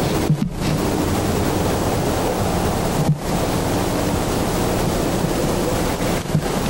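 Wind blowing on a camcorder microphone outdoors: a steady, loud rushing noise with a few brief dips.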